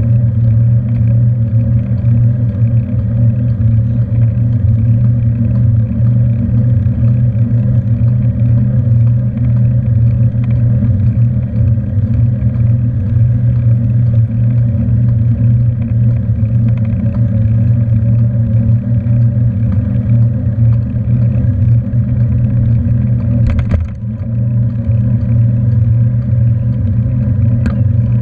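Steady low rumble of wind buffeting and road vibration picked up by a camera mounted on a moving bicycle's handlebar, with a short knock about three quarters of the way through.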